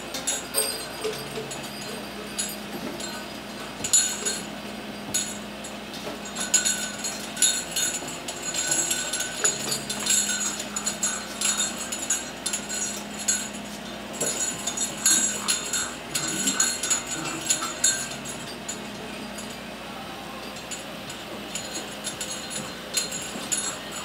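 Stainless steel feeding pan clinking and rattling in scattered, irregular knocks as five-week-old Curly-Coated Retriever puppies eat from it and push it about. The clinks thin out in the last few seconds.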